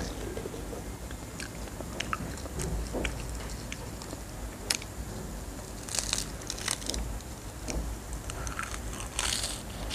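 Crispy seaweed snack crackling and crunching as sheets are snapped apart and chewed, in irregular sharp crackles with a few louder bursts about six and nine seconds in.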